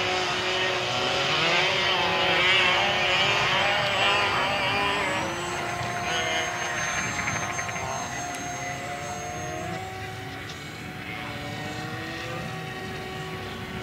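Electric RC model plane's motor and propeller running under power through launch and climb-out, the pitch shifting as the throttle changes. It is loudest in the first few seconds and grows fainter as the plane flies off.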